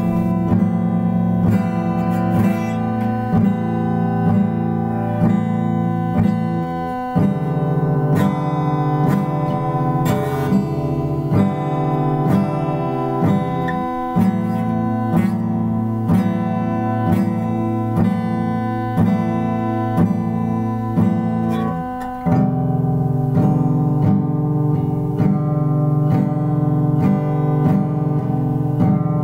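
Guitar played by hand in a slow, repeating plucked pattern, notes left ringing over a steady held tone. The pattern changes about a quarter of the way through and again about three-quarters through.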